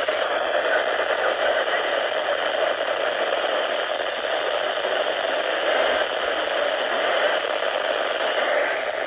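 Steady hiss of radio static from a receiver tuned to a station whose signal is too weak to come in: a failed, unreceived broadcast.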